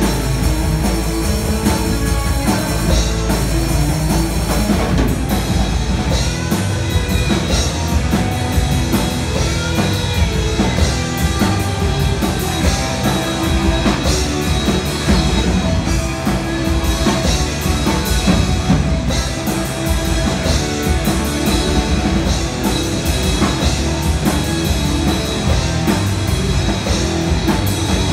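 Live rock band playing: electric guitars, bass and a drum kit keeping a steady beat.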